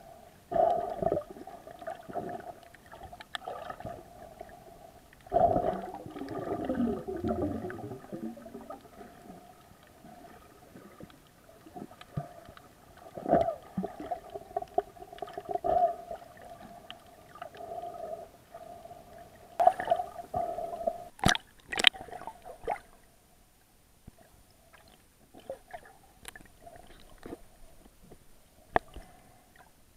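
Muffled underwater sound picked up through an action camera's waterproof case: water gurgling and sloshing in irregular swells, with scattered clicks, two sharp ones a little past twenty seconds in.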